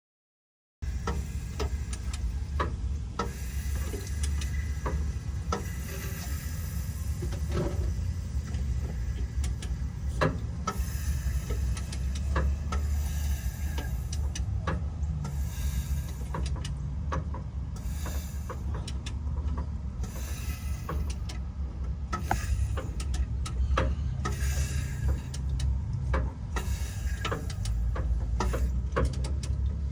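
Metal hand tools clicking and clanking on engine parts at irregular intervals during an engine teardown, over a steady low rumble.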